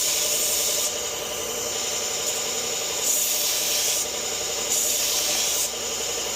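Powered sharpening machine running steadily while a Leatherman blade is drawn across the abrasive in about three light passes, each a second-long grinding hiss over the motor's hum.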